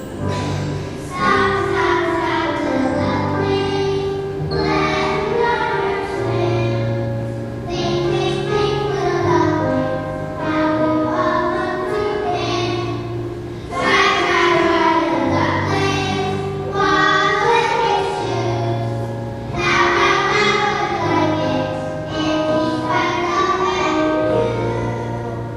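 Child singing a song with instrumental accompaniment and a bass line moving in steady steps.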